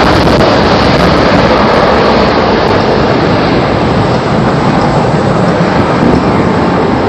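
Steady, loud jet noise from Blue Angels F/A-18 Hornets flying over the field in formation.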